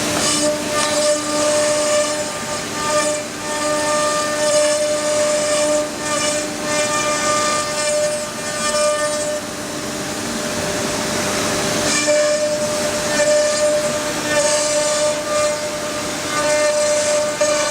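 Wood CNC router spindle running with a steady high whine, with a hissing rush of noise that rises and falls over it. The whine drops out for about two seconds a little past the middle, then comes back.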